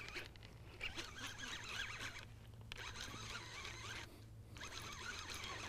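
Fishing reel being cranked to bring in a hooked bass, a faint whirring rasp that stops briefly twice before going on.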